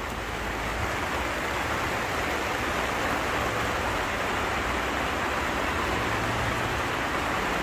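Heavy rain coming down, a steady even hiss.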